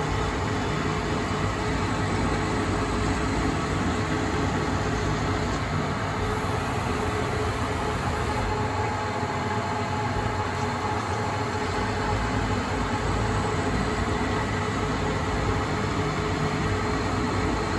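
ProtoTrak CNC lathe running a threading cycle on a 4140 steel ACME thread: steady spindle and drive noise with a few faint constant tones.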